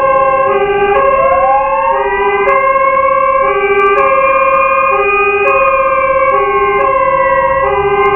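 Fire truck sirens sounding together. A two-tone hi-lo siren alternates evenly between a low and a high note, about 0.6 s each. Over it a wail siren rises about a second in, holds high, and sags slightly and climbs again near the end.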